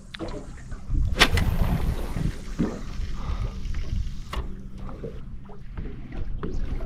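Wind and water slapping against the hull of a small aluminium-type fishing boat at sea, over a faint steady low hum. Sharp clicks or knocks from handling fishing gear in the boat, the loudest about a second in and another past the four-second mark.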